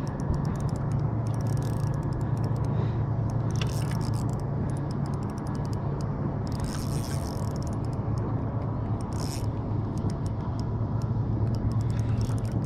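Shimano Stratic CI4+ spinning reel being wound in while a hooked fish is played, with rapid mechanical ticking and a few brief hissy bursts over a steady low hum.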